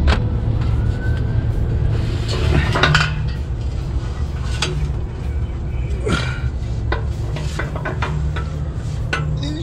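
Scattered metal clinks and knocks as a steel muffler pipe is handled and offered up to a vehicle's exhaust pipe, over low background music.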